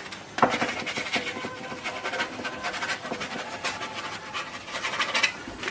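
Oil paint being worked onto canvas: a run of short, irregular scratchy strokes of the painting tool across the canvas surface.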